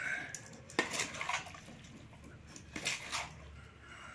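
A large spoon scraping and knocking against a metal bowl while thick lapsi (hog plum) pickle is stirred, in a few separate strokes, with a wet squelch of the coated fruit.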